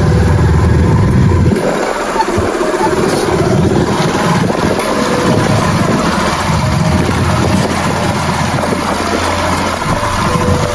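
Motorcycle engines running as the bikes ride along a rough grass track, the low engine sound dropping away briefly about two seconds in.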